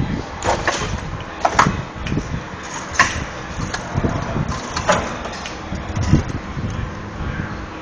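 Irregular metallic clanks and knocks, several sharp ones a second or so apart, from a car's front subframe being worked loose and lowered out from under the car.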